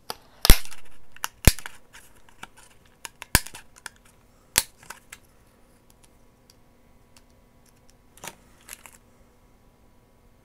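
Paper craft punch snapping shut as snowflake shapes are punched from paper: four loud, sharp clacks in the first five seconds with lighter clicks between them, then two fainter clicks near the end.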